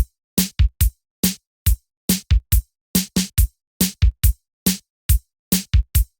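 Electronic music: a drum machine beat playing alone, short dry hits with silence between them in a steady, syncopated pattern.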